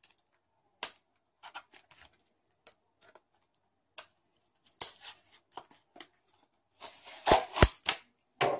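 Plastic case of a laptop battery pack being pried apart by hand: scattered sharp clicks and cracks as the seam gives, with the loudest snaps about seven seconds in.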